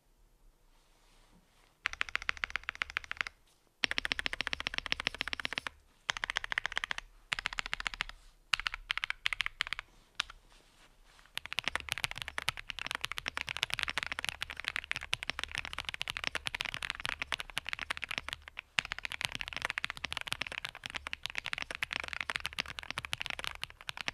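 Typing on a refurbished GMMK Pro aluminium-case mechanical keyboard: rapid keystroke clacks. It starts about two seconds in with short bursts and brief pauses, then becomes continuous fast typing from about halfway.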